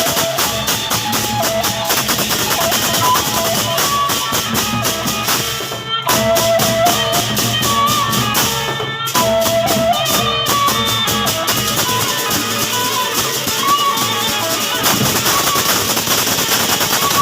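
Gendang beleq ensemble playing: large Sasak drums and clashing cymbals in a dense, fast beat, with a wavering melody over it. The playing drops out briefly about six and nine seconds in.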